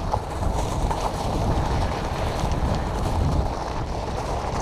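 Wind buffeting the microphone, a steady low rumble, over the light crunch of fat-bike tyres rolling across crushed shells and pebbles, with faint scattered ticks.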